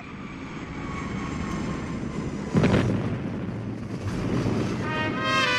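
Recorded sound effect of an airplane engine droning overhead, fading in and growing louder, with a sudden louder surge about two and a half seconds in. Music with brass comes in near the end.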